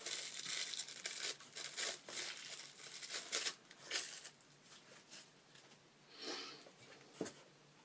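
Packaging and a small case being handled and opened: a run of scratchy rustling and crinkling that thins out after about four seconds, with one sharp click near the end.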